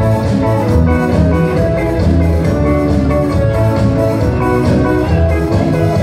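Live band playing loudly: electric guitar carrying an instrumental passage over bass guitar and drum kit, with no vocals.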